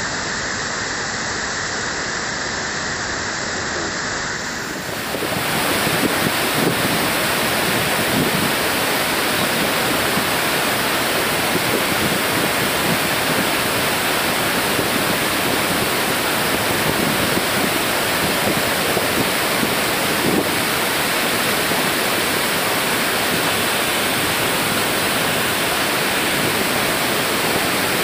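Steady rush of floodwater pouring over a concrete weir spillway, an even, loud wash of water noise that steps up louder about five seconds in.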